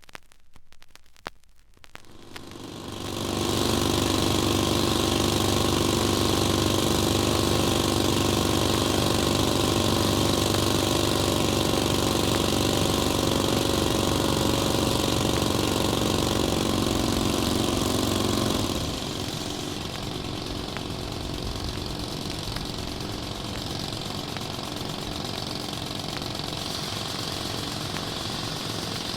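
A motor vehicle engine starting after a few clicks and running steadily. About nineteen seconds in it drops to a quieter, lower running level.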